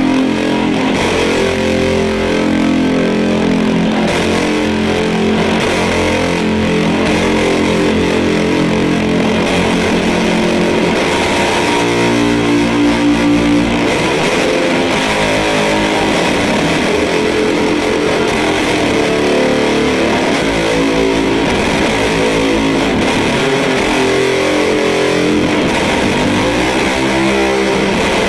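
Electric guitar played through a fuzz pedal into a Fender Deluxe Reverb amp: a thick, distorted tone of sustained chords and held notes, played without a break.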